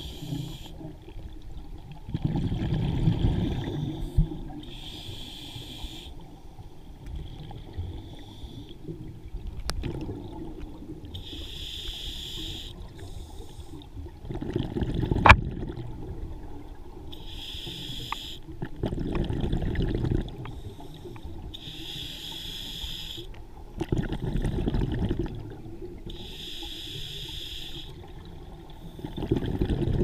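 Scuba diver breathing through a regulator, heard underwater: a hiss on each inhalation alternating with a low rumble of exhaled bubbles, about one breath every five to six seconds. A single sharp click sounds about halfway through.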